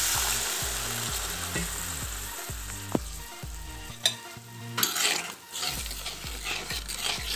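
Hot spiced vegetable masala in a kadai sizzling after water is poured in, the hiss fading over the first few seconds; then a metal spatula stirring and scraping against the pan.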